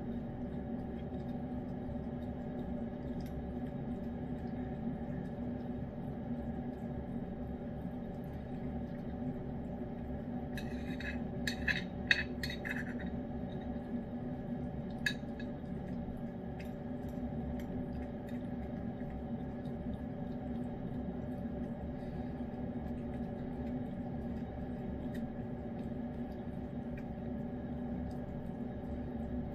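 A metal spoon clinks and scrapes against a ceramic dish in a quick cluster of taps near the middle, then taps once more a couple of seconds later. A steady low hum from a running appliance runs underneath.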